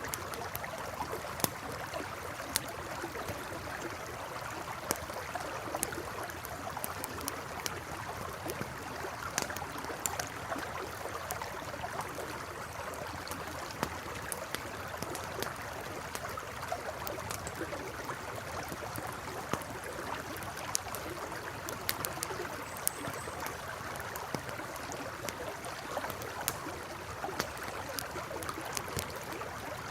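A river flowing with a steady rush, with the sharp, irregular crackles and pops of a burning campfire scattered throughout.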